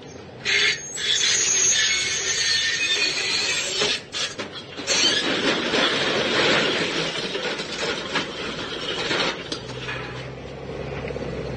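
Metal squealing and scraping as a pallet of bricks is shoved against a truck by forklift forks, then a long clattering crash as the load tips and the bricks tumble into the truck bed and onto the ground. A low steady hum is left near the end.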